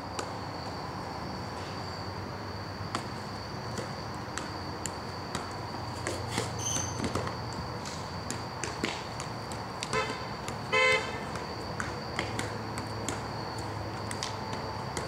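A vehicle horn honks twice in short toots about ten seconds in, the second louder, over a steady background hiss with a constant high-pitched tone and scattered light taps.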